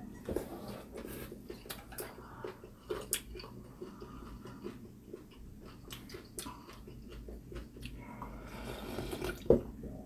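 Eating sounds from a meal of beef rib soup: scattered light clicks of chopsticks and bowls, chewing and sipping, with a louder slurp of broth near the end.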